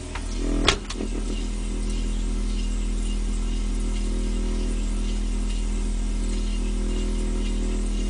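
Refrigerator door shut with a thud a little under a second in, followed by the fridge's steady low electrical hum, heard from inside the closed cabinet.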